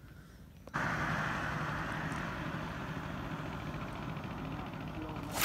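An engine running steadily. It comes in abruptly about a second in and slowly fades, and a sharp click sounds near the end.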